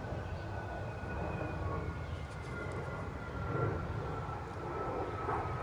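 Low drone of a distant aircraft passing over, a steady hum slowly falling in pitch, with soft scrapes of a knife shaving a dried black cherry stick.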